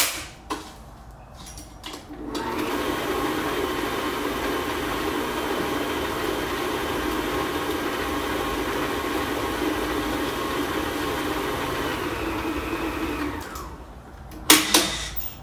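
Electric stand mixer switched on about two seconds in, running steadily as it beats butter with vanilla, and switched off about two seconds before the end. This is followed by a couple of sharp knocks.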